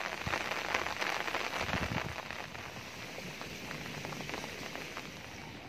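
Hot oil in a wok sizzling and crackling as banana fritters fry. It is loudest about a second in, then slowly eases.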